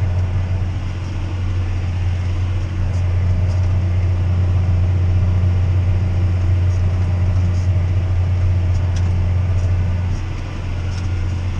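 John Deere 6R tractor engine running with a steady low drone, easing briefly near the end.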